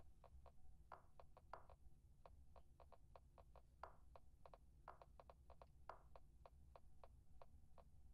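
Faint, quick clicks of typing on a smartphone, several a second at an uneven pace, with a few fuller taps among them, over a low steady hum.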